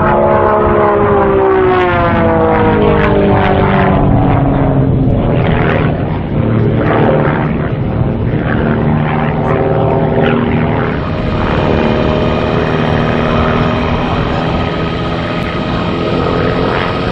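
Engine and propeller of a Pitts aerobatic biplane droning overhead. The pitch falls over the first few seconds, then rises and falls as the plane works through its aerobatic manoeuvres, and holds steadier near the end.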